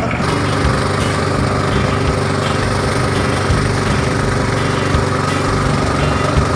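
Small petrol engine running steadily at a constant speed, driving the pump of a power sprayer that pushes disinfectant through a hose.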